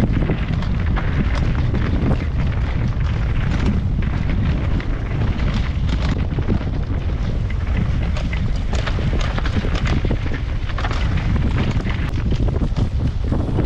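Heavy wind buffeting on the microphone as a mountain bike is ridden fast over rough ground, with frequent small knocks and rattles throughout.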